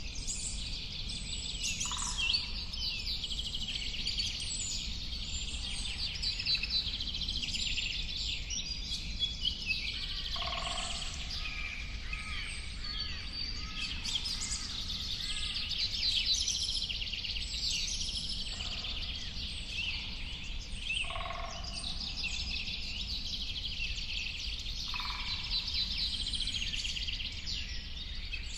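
Many birds singing together, a dense chorus of chirps and trills, with a lower call breaking in every few seconds over a steady low background rumble.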